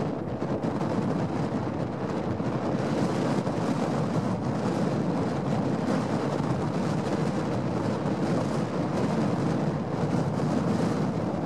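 Strong gusty wind buffeting the microphone, a steady rushing noise.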